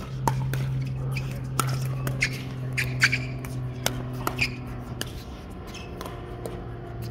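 Pickleball rally: paddles popping against the plastic ball, with the ball bouncing on the hard court, in sharp irregular knocks about every half second. A steady low hum runs underneath.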